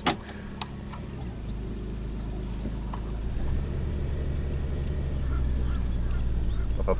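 Toyota Sienna 1MZ-FE V6 engine running, its low drone growing louder about a second in and again midway, as if the engine is brought up in speed or load. It has an intermittent cylinder 5 misfire (P0305), which sets in as a constant misfire around this point.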